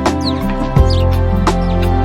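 Instrumental background music with sustained held notes.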